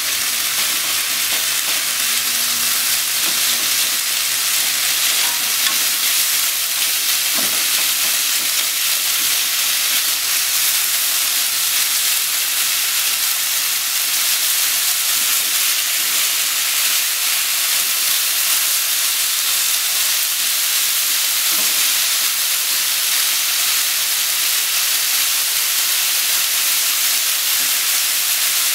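Sliced pork and green onions sizzling steadily in a frying pan as they are stir-fried, turned over with chopsticks.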